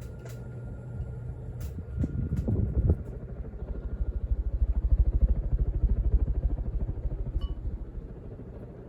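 1993 Casablanca Victorian ceiling fan running on its Emerson K55 motor, with a faint steady whine over a rapid low throbbing of moving air. Near the end the pull chain ticks lightly against the glass light shade.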